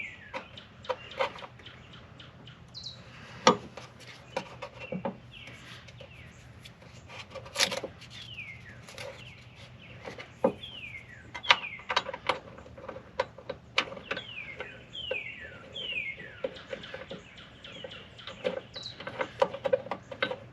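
Irregular metal clicks and clinks of a bolt being worked against a running-board bracket under a truck while it is hard to start into its thread. A bird chirps over and over, each chirp falling quickly in pitch.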